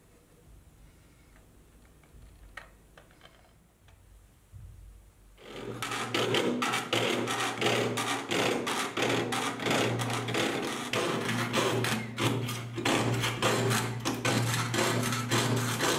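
Fine saw blade cutting thin 0.4 mm brass sheet in rapid rasping strokes, starting about five seconds in after a few faint handling clicks.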